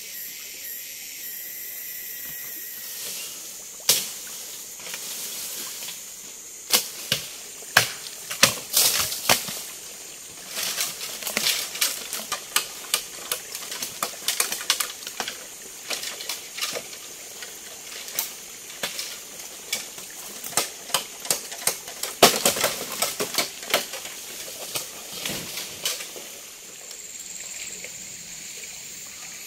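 Bamboo being cut and handled: irregular sharp cracks and knocks, sometimes several a second, over a steady high hiss.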